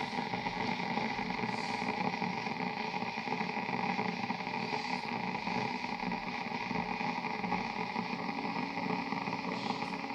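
Deerma DR035 electric kettle heating water that is not yet at the boil: a steady hiss and low rumble from the heating water.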